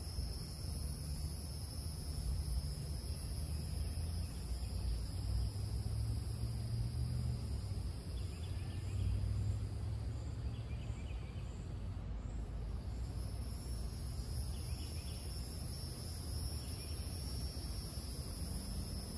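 Outdoor insect chorus: a steady high buzzing trill on two pitches, the upper one briefly dropping out about twelve seconds in, over a low rumble, with a few faint short chirps now and then.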